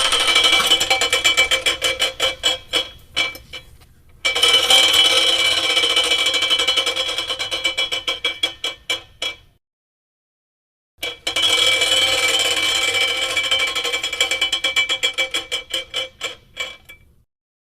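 A pulley and rollers spun and left to run down, three times over. Each time a fast run of clicks over a high ringing tone slows, the clicks spacing out until they stop.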